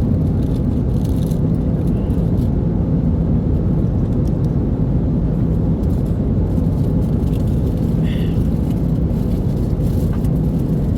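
Steady low drone of an airliner cabin in flight, engines and airflow running evenly.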